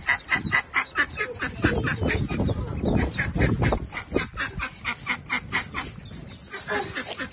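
Mallard ducks calling in a fast, even run of short calls, about six a second, over a low rumble.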